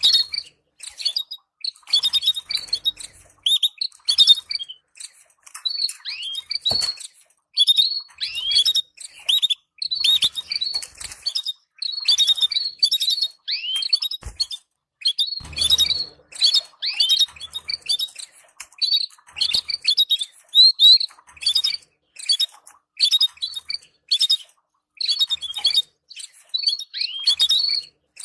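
Canaries chattering in a rapid, continuous stream of short high chirps and twitters, the excited calls played to stimulate breeding pairs.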